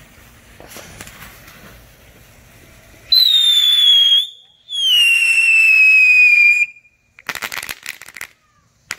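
A race-car-shaped ground firework goes off: a faint fuse hiss, then two loud whistles, one about three seconds in and a longer one about five seconds in, each sliding slightly down in pitch as it shoots sparks out the back. A quick run of crackling pops follows, then a single pop near the end.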